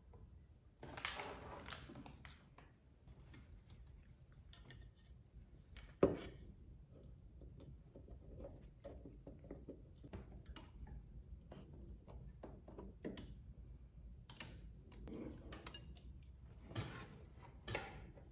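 Parts of a Creality Ender 3 V2 3D printer being handled and fitted together by hand during assembly: scattered light clicks and taps of metal and plastic parts, a short rustle about a second in, and one sharper knock about six seconds in.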